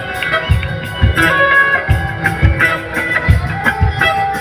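A live rock band playing an instrumental passage in a concert hall, with electric guitar and organ over a steady drum beat.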